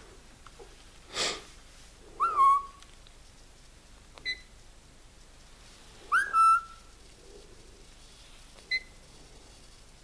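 Senegal parrot calling: a short harsh burst about a second in, then two sliding whistles that rise and fall, each followed a couple of seconds later by a short high peep.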